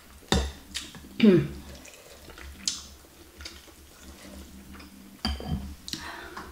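Metal fork and spoon clinking and scraping against a glass bowl of noodle soup, in a few scattered knocks with a small cluster near the end, along with eating noises and one short falling hum about a second in.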